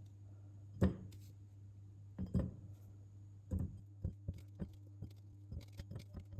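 Olives being taken out of a bottle and put into a glass jar: a string of irregular soft knocks and clinks, sparse at first and then quicker and smaller. A steady low hum runs underneath.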